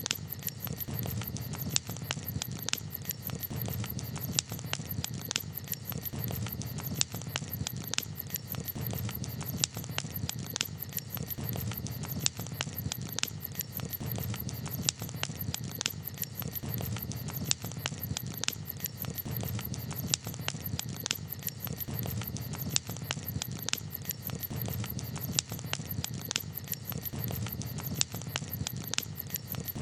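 Campfire crackling: irregular sharp pops and snaps over a steady low background noise.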